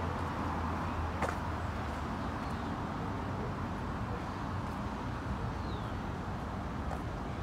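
Steady street noise of road traffic, a low hum under an even hiss, with a single sharp click about a second in.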